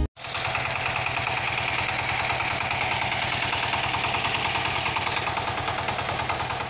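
Small battery-driven electric motor of a homemade toy tractor running steadily, with a fast, even buzzing rattle from its drive.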